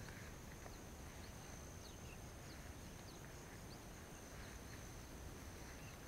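Faint rice-field ambience: a steady high insect drone, with several short, thin, falling bird chirps about two to three seconds in, over a low rumble.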